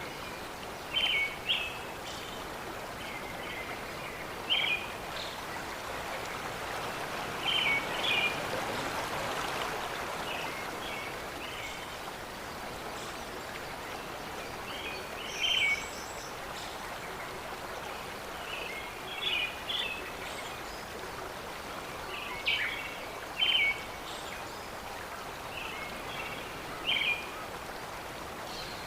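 Steady rushing of running river water, with a bird repeating short high calls every one to three seconds above it.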